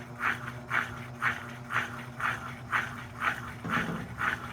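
Electrolux Turbo Economia 9 kg top-loading washing machine in its final spin, the motor humming steadily under an even, squeaky rasp that repeats about twice a second.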